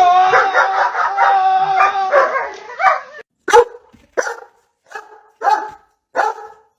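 A dog howls in one long wavering cry for about three seconds, then gives five short barks about two-thirds of a second apart.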